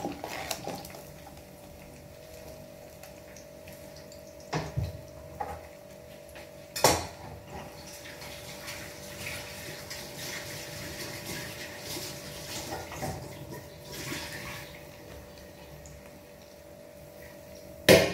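Chopped onion, ginger and garlic frying gently in oil in a non-stick wok: a soft sizzle with a faint steady hum beneath. A few sharp knocks of cookware come through it, the loudest at the very end.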